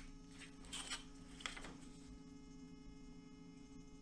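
A few short pencil strokes scratching along a steel straight edge, over a paper template on thin birch plywood, in the first second and a half, then a faint steady electrical hum.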